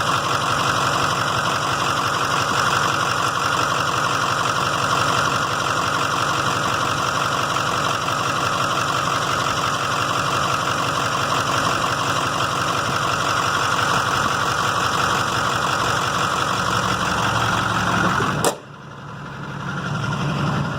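A 2006 Duramax LBZ 6.6-litre V8 turbodiesel idling steadily. About 18 seconds in there is a sharp click, the sound drops suddenly, and then it builds back up.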